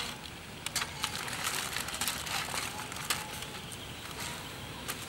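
Aluminium foil packets crinkling and scraping on a metal grill grate as they are moved with metal tongs, with scattered sharp clicks and ticks.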